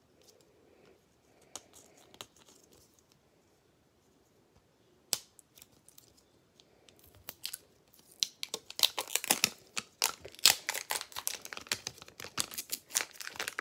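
Plastic wrapping of a Mini Brands surprise ball being worked open by hand: a few scattered clicks, then from about eight seconds in, dense rapid crackling of plastic.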